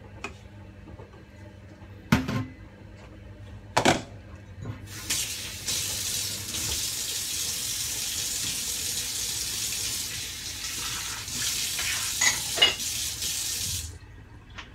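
Two sharp knocks, then a kitchen tap runs steadily for about nine seconds, with a couple of clinks from something handled under the stream near the end, and is shut off suddenly.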